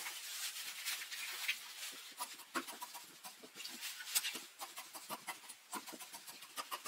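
Quiet, irregular snips and crunches of scissors cutting through a lined silk tsumugi kimono, with the cloth rustling as it is handled.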